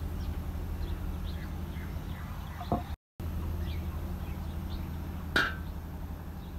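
Faint, scattered bird chirps over a steady low hum. There is a small click just before a brief dropout near the middle, and a sharp clink with a short ring about five seconds in.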